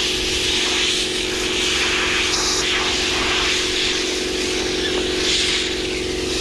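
Compressed air hissing from an air nozzle as it blows dust out of a combine's engine air filter element, the hiss rising and falling as the nozzle moves, over a steady machine hum.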